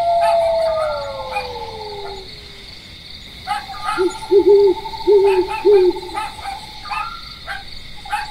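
Night-time sound effects: a long canine howl that falls in pitch and fades after about two seconds, then a few short low owl hoots about halfway through, over a steady chirring of crickets.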